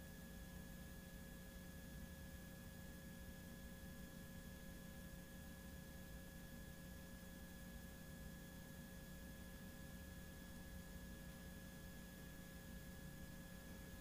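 Near silence: steady room tone with a faint, unchanging hum.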